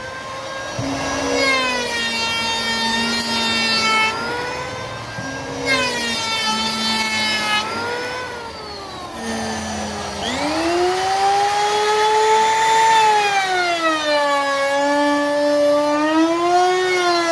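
Electric wood router cutting a profile into a panel: a loud high motor whine whose pitch sags and recovers several times as the bit takes and eases off the cut.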